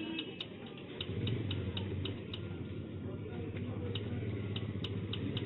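Typewriter keys being struck: sharp, uneven clicks several times a second, a pause of over a second, then more clicks. A steady low hum runs underneath from about a second in.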